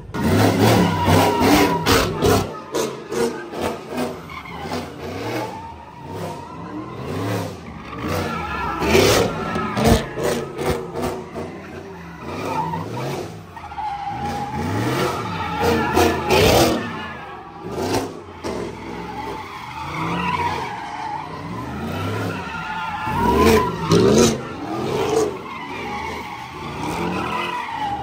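A car engine revving up and down again and again, with tyres squealing and skidding on the pavement during drifting or donuts.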